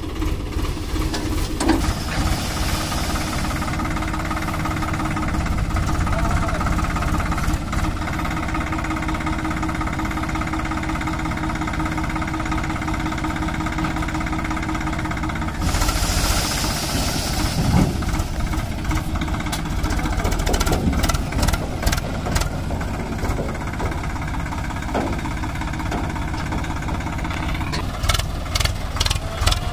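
Swaraj 744XT tractor's three-cylinder, naturally aspirated diesel engine running steadily. There is a brief burst of hiss about sixteen seconds in, and a run of sharp clicks near the end.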